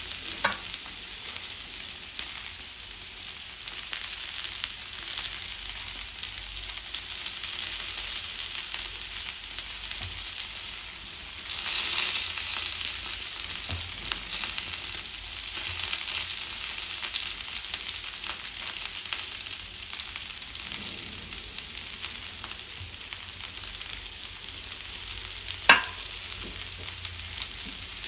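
Broccoli and sliced red onion sizzling steadily in a hot frying pan, with a hiss that swells briefly midway. A single sharp click stands out near the end.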